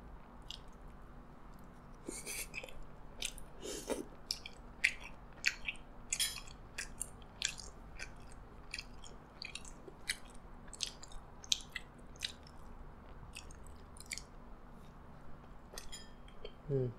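A person chewing a soup dumpling (xiao long bao) with the mouth closed: wet mouth smacks and clicks, irregular, about one or two a second.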